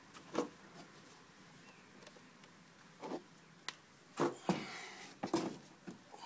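Scattered knocks and clicks of small objects being handled, irregularly spaced, busiest and loudest about four to five seconds in.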